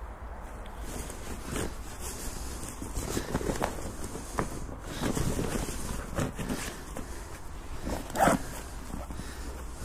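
A bag's zipper being pulled open and hands rummaging through the fabric bag, in irregular rustling and scraping strokes, with one sharper scrape about eight seconds in.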